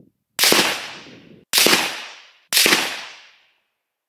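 Three shots from a Steyr Scout .223 Remington bolt-action rifle, about a second apart, each a sharp crack trailing off over about a second.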